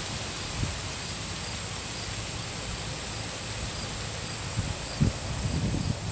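Outdoor background with no siren sounding: a steady high-pitched whine over a faint hiss, and a few low rumbles of wind on the microphone, the strongest about five seconds in.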